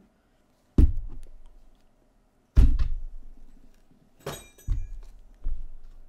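Handling noise as a person fiddles with a piece of gear: a few dull thumps and knocks, the loudest about a second in and near the middle, with a brief metallic clink a little later.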